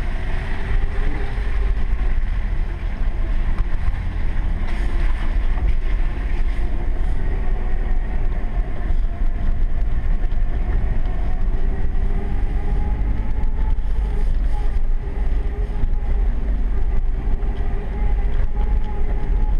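Pickup truck's engine and drivetrain running steadily at low speed on a dirt road, heard from inside the cab as a continuous low rumble.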